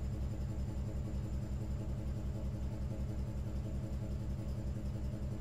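Car engine idling steadily with a low, even pulsing.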